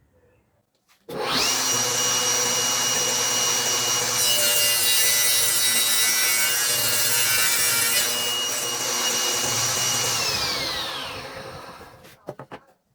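Electric woodworking power tool switched on, running with a steady high whine and cutting into wood for a few seconds in the middle, then switched off and spinning down with falling pitch.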